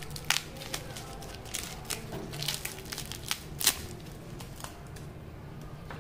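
Paper and plastic wrapping crinkling and crackling as hands unwrap a package, in irregular sharp crackles that thin out over the last two seconds.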